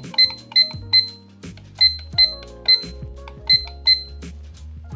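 Short, sharp high-pitched beeps from the IKEA Plugget digital alarm clock as its buttons are pressed to step the minutes, about eight in uneven groups, over background music.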